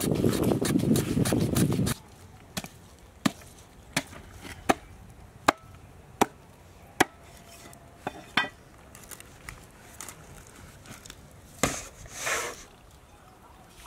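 A large knife chopping through a whole shark on a wooden stump. After about two seconds of loud rough noise come seven sharp chops about three-quarters of a second apart, then a few scattered knocks and a short scrape near the end.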